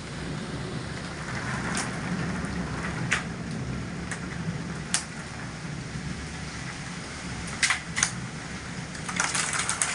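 Steady rain in a thunderstorm: an even hiss over a low steady rumble, with a few sharp taps scattered through and a quick run of them near the end.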